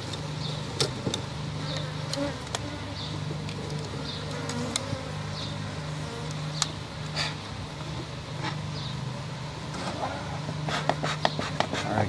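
Honeybees buzzing around the comb: a steady low hum that drops out and comes back several times. Scattered sharp clicks and taps come from the wooden comb frame being handled.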